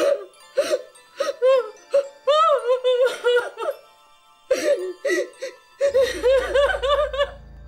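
A woman wailing and sobbing in anguish, in loud, high, broken cries that rise and fall, with a short pause partway through. A low music drone comes in near the end.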